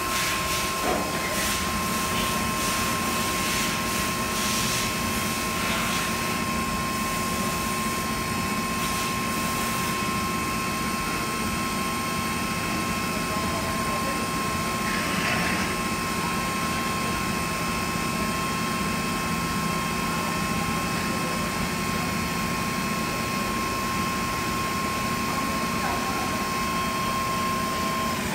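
Electric hydraulic power pack and two-stage gear flow divider running steadily, a constant high whine over a low hum, as two hydraulic cylinders extend in step under uneven load. The whine cuts off suddenly at the very end.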